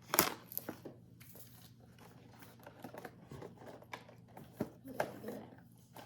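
Crinkling and rustling of packaging for individually wrapped cookies as the box's contents are handled, with a sharp crackle just after the start and scattered smaller rustles.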